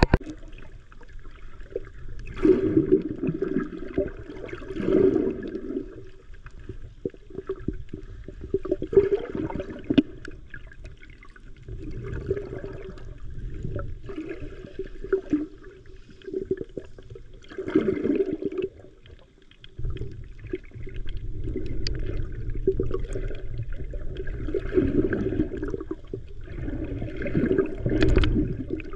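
Water rushing and gurgling, heard muffled through a GoPro Hero 9 held underwater in the shallow sea, swelling and fading every few seconds.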